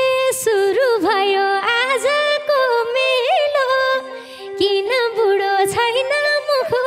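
A woman singing a Nepali lok dohori Teej song, holding long notes decorated with quick ornamental turns, over a steady held tone, with only a few light drum strokes.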